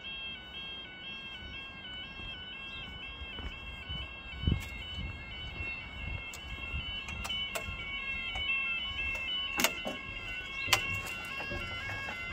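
Level crossing warning alarm sounding: an electronic two-tone alarm stepping steadily between two pitches, with more than one alarm overlapping out of step, as the crossing barriers lower. A low thump comes about four seconds in, and two sharp knocks come near the end.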